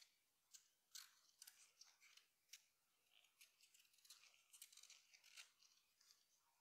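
Near silence with faint, irregular crisp clicks and rustles, about two a second.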